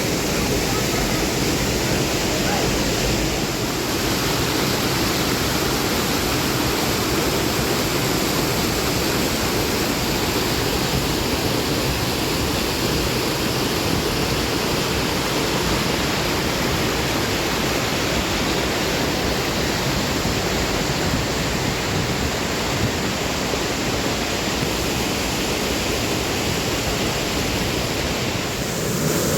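Rushing water: a steady, even rush with no breaks.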